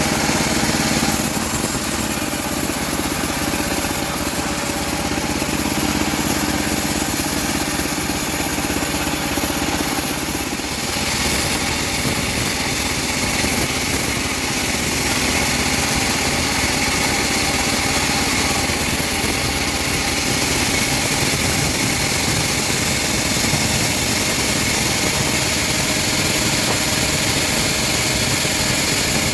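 Homemade bandsaw mill running steadily while sawing teak wood; its tone shifts about eleven seconds in.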